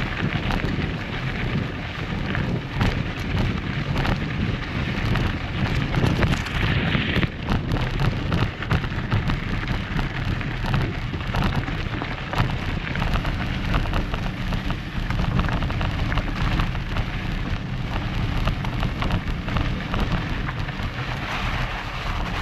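Mountain bike's knobby tyres rolling over a loose gravel dirt track, a steady crackle of stones under the tyres, with heavy wind rumble on the microphone.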